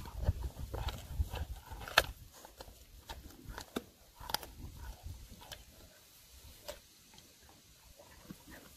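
A German Shepherd gnawing a raw bone: irregular sharp cracks and crunches of teeth on bone, the loudest about two seconds in. A low rumble runs under the first few seconds.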